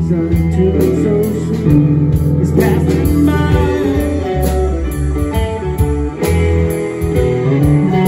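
Live band playing: electric guitar leading over a drum kit keeping a steady beat, with keyboard underneath.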